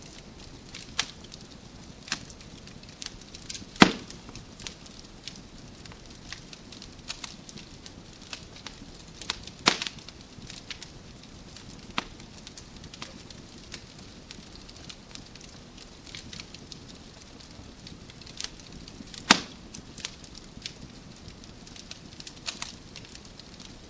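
Wood fire crackling in a fireplace: a steady low hiss with scattered sharp pops from the burning logs, three of them louder, at about 4, 10 and 19 seconds in.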